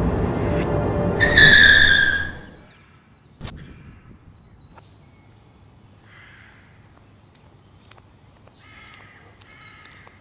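Car braking hard to a stop: road and engine noise, then the tyres squeal loudly for about a second. A single sharp knock follows about three seconds in, then quiet with a few faint chirps.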